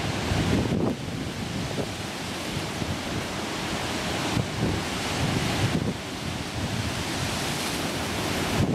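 Ocean waves washing in surf, a continuous rushing noise that swells and eases in surges, with wind buffeting the microphone as a low rumble.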